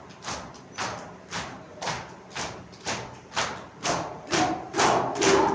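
A group beating their chests with their hands in unison (matam), a sharp slap about twice a second. Crowd voices chanting come in and grow louder near the end.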